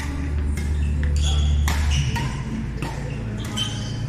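Badminton rackets hitting a shuttlecock, a quick series of sharp pings, with short squeaks of court shoes on the floor in between, in a large echoing hall over a steady low hum.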